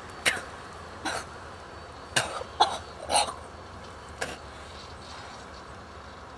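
A girl coughing and choking in short fits, about six coughs over four seconds, then stopping.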